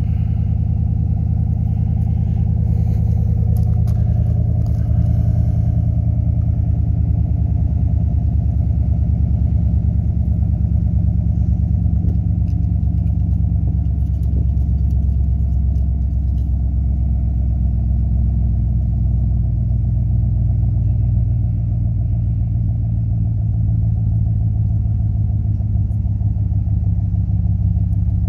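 Chevrolet Silverado's 6.2-litre V8 idling steadily, shortly after a cold start, through a Flowmaster 40 Series muffler with the exhaust flapper valve deleted and the stock catalytic converters kept. The sound is low, even and loud at the tailpipe.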